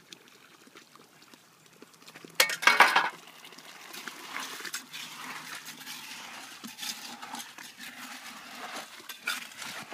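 A plastic bucket is tipped to pour its contents into a post hole. About two and a half seconds in there is a short loud rush, then scattered clinks and scrapes.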